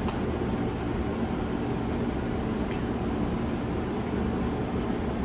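A room heater running: a steady, even rushing noise, heaviest in the low range. Two faint ticks, just after the start and a little under three seconds in.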